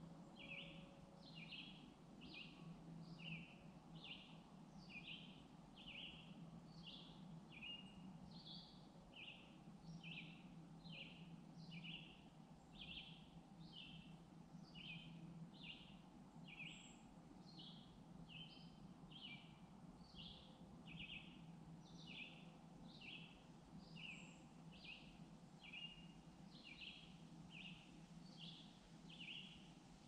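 Faint, steady series of short high chirps, about two a second, from a bird calling over and over, over a low steady hum.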